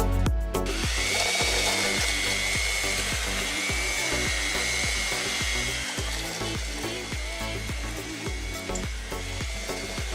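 Background music with a steady beat, joined about a second in by the steady whir of a small motorised tool.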